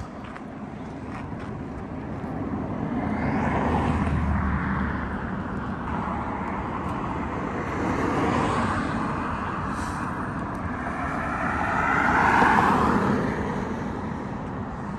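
Cars passing one after another on a paved road, their tyre and engine noise swelling and fading three times, the last pass the loudest.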